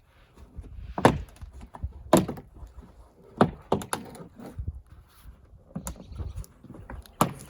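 Plastic retaining clips of a factory rear diffuser popping loose as the panel is pried and pulled off by hand: a series of irregular sharp snaps and knocks, the loudest about a second in, about two seconds in, around three and a half seconds in and near the end.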